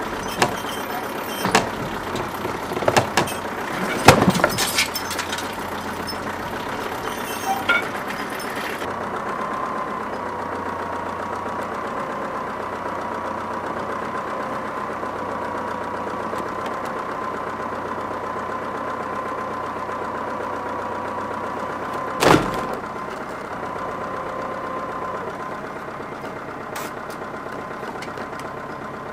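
A small engine running steadily. Several sharp knocks come in the first nine seconds, and one more about 22 seconds in.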